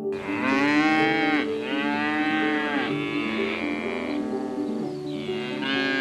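Bison mooing: long, drawn-out calls that rise and fall in pitch, two back to back at the start and another near the end, over soft background music.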